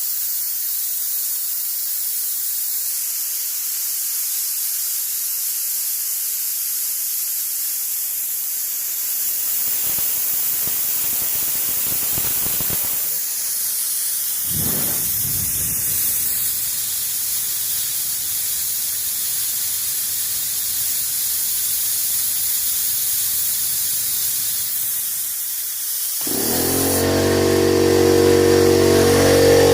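A steady high hiss of compressed air escaping. About 26 seconds in, the 17-gallon air compressor's motor and pump kick on and run with a steady hum, recharging the linked tanks.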